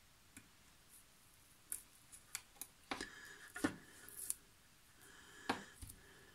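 Masking tape being picked and peeled off a freshly sprayed diecast model car body with metal tweezers, as the second colour's masking comes off. It is a string of small sharp clicks with short crackles of tape, loudest a little over three and a half seconds in and again about five and a half seconds in.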